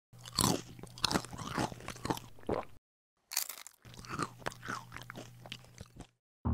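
Cartoon sound effect of someone chewing crunchy snack chips, irregular crisp crunches over a steady low hum, broken by a short silence about three seconds in.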